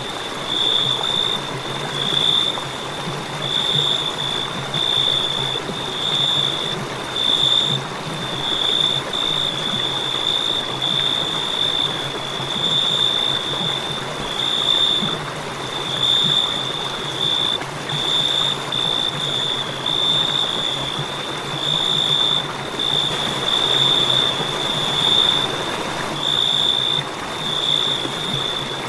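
Crickets chirping: a continuous high-pitched trill that swells in pulses of about a second, one after another without pause, with a faint low hum underneath.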